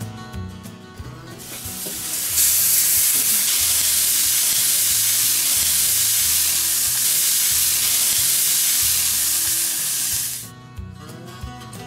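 A thick tomahawk rib-eye steak sizzling loudly as it is laid on the hot grates of a Masterbuilt 560 charcoal grill for the final sear. The sizzle builds about two seconds in, holds steady, and cuts off suddenly near the end.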